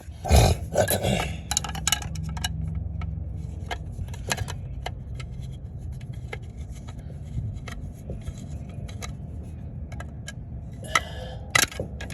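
Small metallic clicks, clinks and scrapes of hand work on a distributor as the rotor is taken off, over a steady low hum. A louder knock or handling noise comes in the first second.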